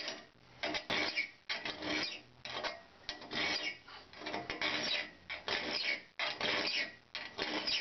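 Steel file rasping across a raker tooth of a two-man crosscut saw in a steady run of short strokes. It is taking down a raker that stands slightly too high against the straight edge.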